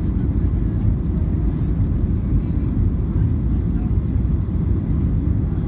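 Steady low rumble of an airliner's engines and slipstream heard inside the passenger cabin, the aircraft descending on final approach with its flaps extended.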